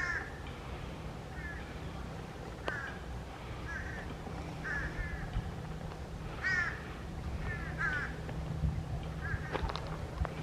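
A bird calling over and over: short arched calls, roughly one a second and often in pairs, over a steady low rumble.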